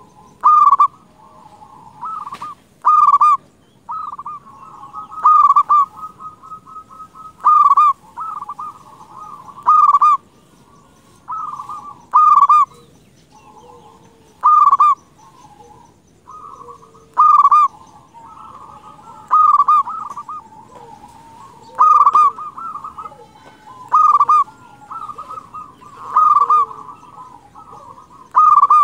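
Local zebra dove (perkutut) singing vigorously: a loud cooing call repeated about every two to two and a half seconds, with quieter rapid cooing notes between the calls.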